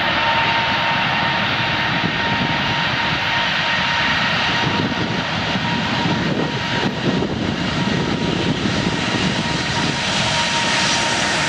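Jet engine running steadily: a loud, even rushing noise with a steady whine held at one pitch over it.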